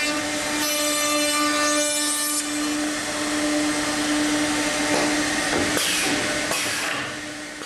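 5-horsepower high-speed router motor of a CNC stair router running with a steady whine while its bit cuts a housing groove into a wooden stair stringer. It fades away near the end.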